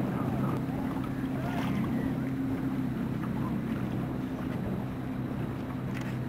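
Boat engine running with a steady low hum, with wind and water noise.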